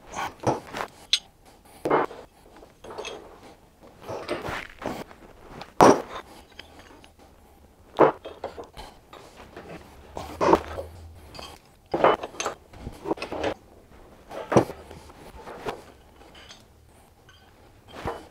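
Irregular metallic clanks and clinks of a steel piece, an adjustable wrench and a cast-iron bench vise knocking together as the steel is bent cold and repositioned in the vise, about a dozen strikes with the loudest a little past the middle.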